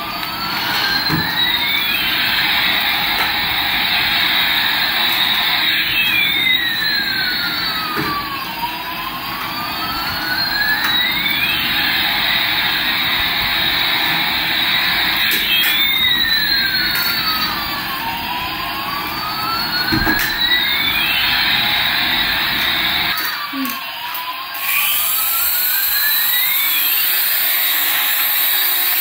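Battery-powered light-up toy Airbus A380 playing its electronic jet-engine sound: a steady hiss with a tone that sweeps up and down every few seconds, over a low rumble. About 23 seconds in, the rumble stops and a high whir of a small motor joins in.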